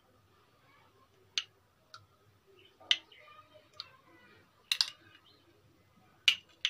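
A metal spoon clicking sharply against a glass serving dish, about seven irregular taps, as chopped kiwi is spooned onto milk.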